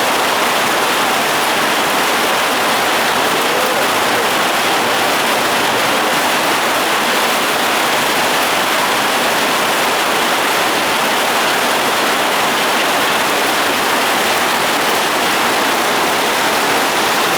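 Heavy rain pouring down in a storm, a loud, steady, unbroken hiss.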